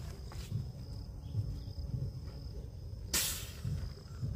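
Insects chirring in a steady high tone over a low uneven rumble, with one short loud hiss a little past three seconds in.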